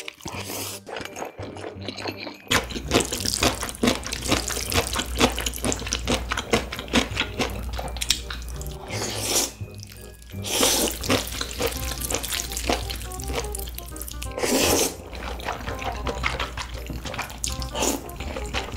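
Wet slurping and chewing of black bean noodles eaten with chopsticks: many sharp smacks and several long, loud slurps. Background music with a steady low beat comes in about two and a half seconds in.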